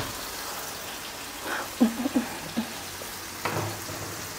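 Food frying in a pan on a gas stove, a steady soft sizzle. A brief low murmur of a voice comes about two seconds in, and a dull knock about three and a half seconds in.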